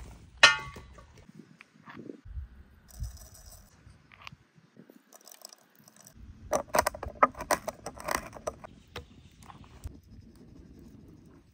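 A sharp ringing metallic clang near the start. Later comes a dense run of small clicks for about two seconds: peppercorns and coarse salt poured from a glass jar, rattling into a wooden bowl.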